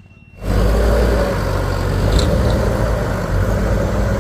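Heavy machine engine running loudly and steadily, cutting in suddenly about half a second in.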